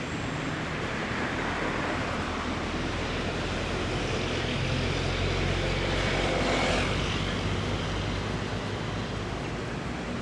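A passing vehicle's engine, rising gradually to its loudest about six to seven seconds in and then fading, over a steady outdoor hiss.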